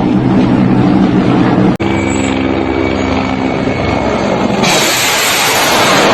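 Helicopters flying low, a steady low drone of rotors and engines, heard through a string of short clips. The sound cuts abruptly about two seconds in, and a loud even hiss joins the drone about three-quarters of the way through.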